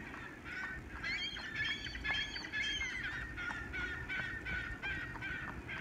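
Several birds calling in a rapid, overlapping series of short, slightly falling calls, starting about half a second in and continuing throughout.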